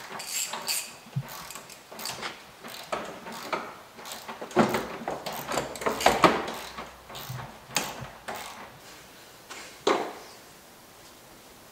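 Irregular clicks, clunks and rattles of hand tools and plastic and metal car parts being worked loose at the front corner of a car, around the headlight and wheel arch. The busiest stretch falls in the middle, with one sharp knock near the end.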